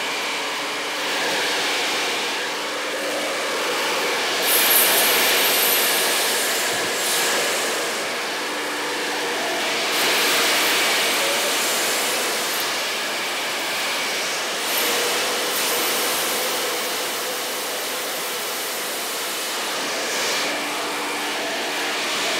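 Sedu Revolution Pro 6000i hair dryer running on its highest heat setting, a steady rush of air with a faint motor hum, swelling and dipping in loudness as it is moved about the head.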